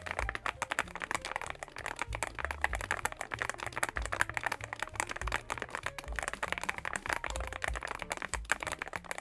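Fast continuous typing on a YUNZII AL66 mechanical keyboard, with an aluminium CNC case and gasket mount, giving a rapid, irregular stream of key clicks with occasional deeper thuds.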